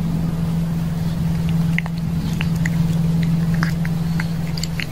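A kitten eating wet cat food from a plate: small, irregular chewing clicks start about a second and a half in. Under them runs a steady low hum, which is the loudest sound.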